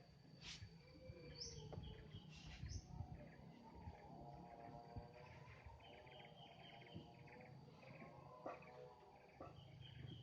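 Faint outdoor ambience with birds chirping and calling on and off over a steady high, thin tone.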